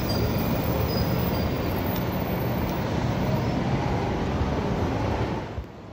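City bus engine running as the bus drives away along the street, over steady traffic rumble. The sound dips briefly near the end.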